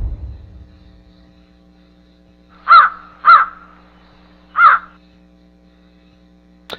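Three short, loud bird caws, two close together and a third after a pause. A loud rushing noise dies away at the start, and a faint steady hum runs underneath.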